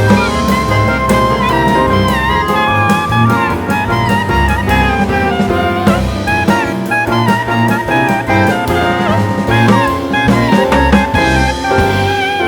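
Background music: an upbeat jazz-style tune with a melody instrument and a drum kit keeping a steady beat.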